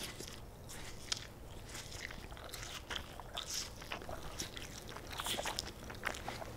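A man chewing food with his mouth open: irregular wet clicks and crunches of open-mouthed chewing.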